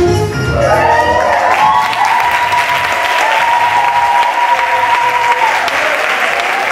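Audience applauding and cheering as the dance music ends, with long high-pitched shouts held over the clapping.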